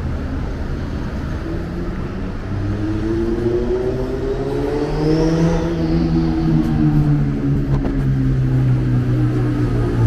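Motor vehicle engine accelerating, its pitch rising for a few seconds and then settling into a steady low drone, over general street rumble.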